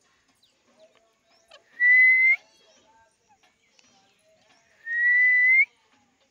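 Alexandrine parakeet whistling twice, about three seconds apart: each a clear held note that lifts slightly at the end, the second one longer.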